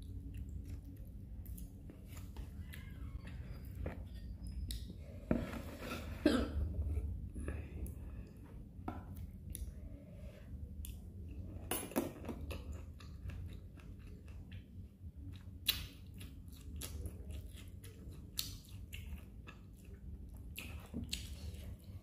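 Close-up chewing of noodles and canned corn kernels, with scattered sharp clicks of a metal spoon and fork against the tin can and the cup.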